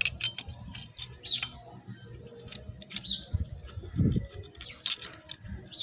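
Scattered light metallic clicks and taps as oily clutch plates are worked by hand onto the clutch basket and hub of a Yamaha YBR 125 engine, with a few short high chirps among them.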